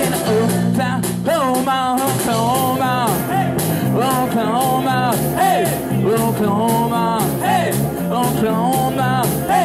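Live rockabilly band playing: a man singing over a walking electric bass line, guitar and a steady drum beat.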